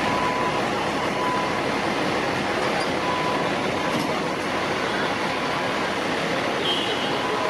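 Steady rumble and road noise of a fire truck, even and unchanging throughout.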